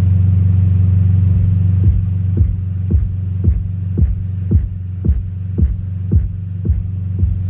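Edited-in intro sound design: a steady low droning hum with a heartbeat-like thump about twice a second joining in after the first couple of seconds.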